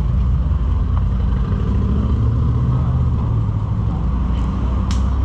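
Steady low rumble of a motor vehicle engine close by, with a single sharp click near the end.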